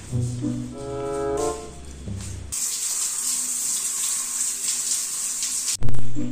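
Background music with brass-like notes, then a shower head spraying water as a steady hiss for about three seconds. A loud short thump near the end is the loudest sound.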